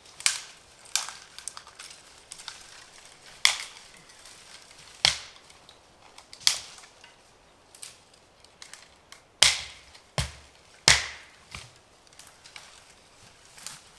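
A series of loud, sharp cracks at uneven intervals: eight strong ones with fainter snaps between.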